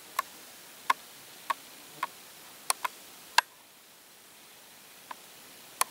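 About nine short, sharp clicks at uneven intervals, some close together in pairs, over a faint steady hiss.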